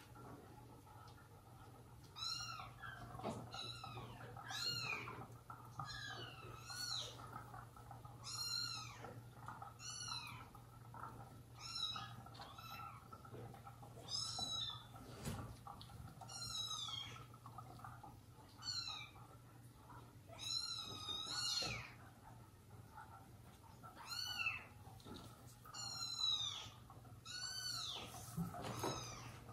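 Kitten mewing over and over: short, high-pitched cries about once a second.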